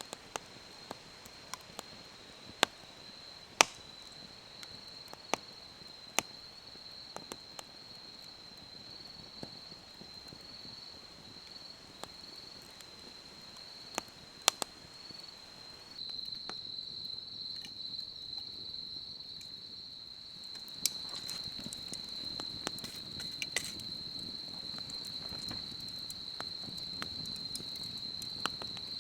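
A steady high-pitched insect trill, with scattered sharp snaps and clicks over it. About sixteen seconds in the trill becomes louder and the background changes.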